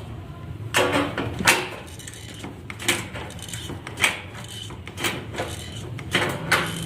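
Irregular knocks and clatter of drywall installation work: about seven sharp knocks spread unevenly over the seconds, some with a short ring, over a low steady hum.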